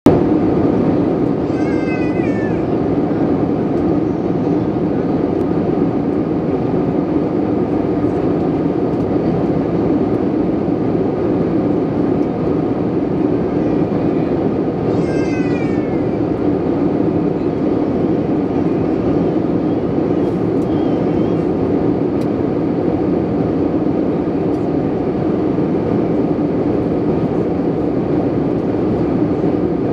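Steady cabin noise of an airliner in flight, the even rush of engines and airflow heard from a window seat. Two short, high cries falling in pitch cut through it, one a little under two seconds in and one about fifteen seconds in.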